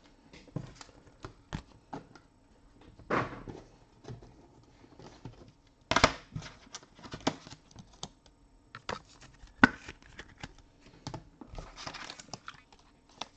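Panini Select soccer trading cards and their plastic sleeves being handled: scattered light clicks and taps with brief crinkling, sliding rustles. The sharpest click comes about ten seconds in.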